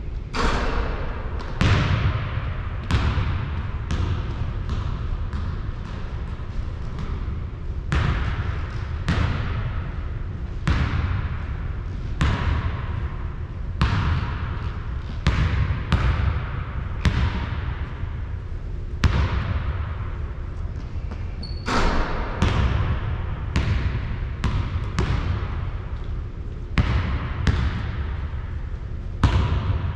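Basketball bouncing on a hard court, one sharp bounce about every second, each with a short ringing decay.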